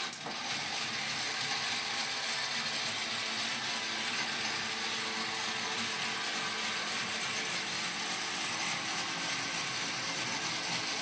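RB5X robot's drive motors and gear train running steadily as it rolls forward, a continuous mechanical whirring and grinding.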